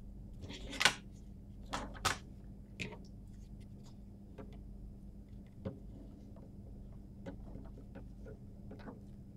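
Cables and a plug-in power adapter being picked up and set down on a wooden desk. A few sharp clicks and knocks come in the first three seconds, the loudest about a second in, followed by fainter scattered ticks over a steady low hum.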